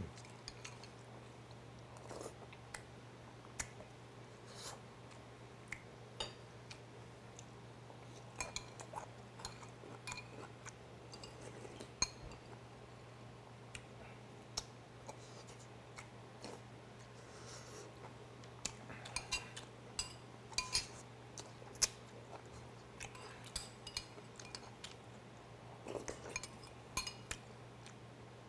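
Metal spoon clinking and scraping irregularly against a small bowl as a man eats, with quiet chewing between spoonfuls, over a low steady hum.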